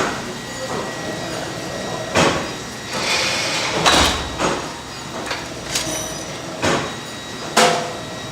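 Workshop clatter around an induction forging heater: a handful of sharp metal knocks and scrapes, as of iron bars being handled, over a steady background with a faint constant whine.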